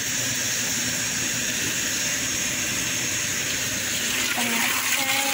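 Panasonic top-loading washing machine filling with water as a wash cycle begins: a steady rush of water pouring into the drum.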